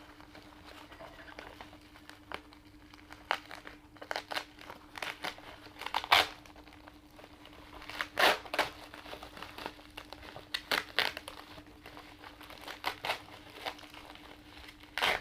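Product packaging being handled and opened by hand: irregular crinkling and rustling with scattered clicks, and a few louder sharp crackles about six, eight and fifteen seconds in.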